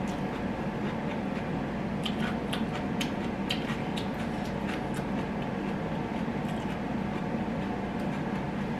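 A person chewing food with the mouth closed, with a run of small wet clicks of the mouth from about two to five seconds in, over a steady background hiss and low hum.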